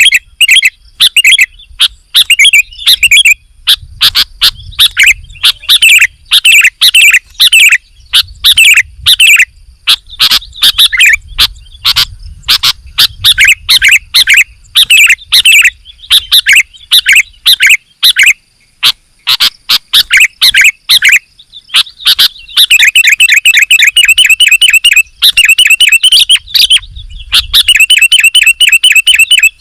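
Sooty-headed bulbul (kutilang) singing loudly and without pause: a stream of short whistled notes, changing about two-thirds of the way through into fast, rapidly repeated chattering runs.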